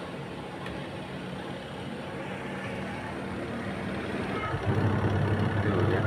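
Twin-tub washing machine motors: the spin-dryer motor hums steadily at full speed on its new capacitor, and about four and a half seconds in the wash motor starts with a louder low hum, running normally.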